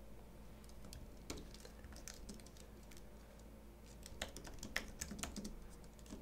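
Faint typing on a keyboard: soft, irregular key clicks, with a few louder taps a little past the middle.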